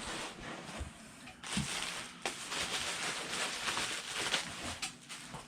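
Rustling and crinkling of packaging being handled as the replica belt is unpacked, with a few light knocks.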